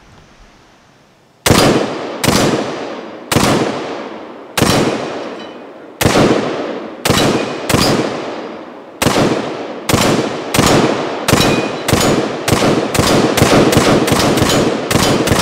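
AR-15 carbine with a 14.7-inch pinned-and-welded barrel firing semi-automatically: about twenty shots starting about a second and a half in, roughly one a second at first and speeding up to two or three a second near the end, each shot dying away over a fraction of a second. The rifle cycles every shot without a stoppage, a function test it passes.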